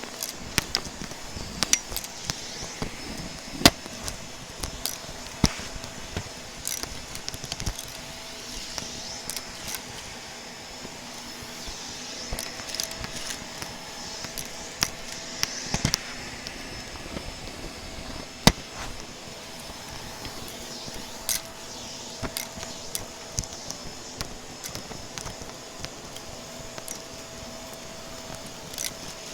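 Vacuum cleaner running steadily with a faint motor whine, while debris rattles and clicks up through it in frequent, irregular sharp crackles.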